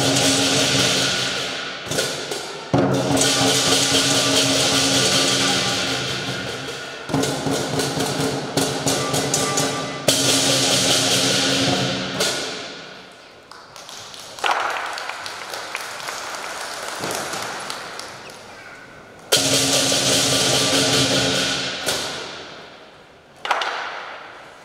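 Southern lion dance percussion, a big lion drum with crashing cymbals, playing a driving rhythm for the lion. About halfway through it drops back to softer playing, swells loud again a few seconds later, then fades near the end.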